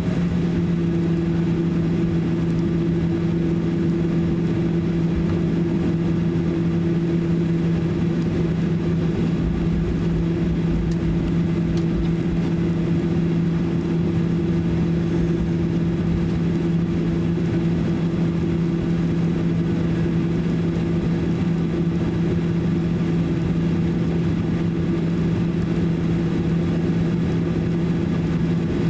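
Cabin noise inside a Boeing 737-800 while it taxis. The CFM56-7B jet engines at low taxi thrust give a steady two-note hum over a rumbling roar, with a slightly heavier low rumble about ten seconds in.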